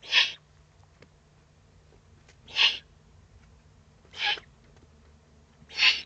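Eurasian eagle-owl chicks giving their rasping, hissing begging calls: four short hoarse hisses, one every two seconds or so.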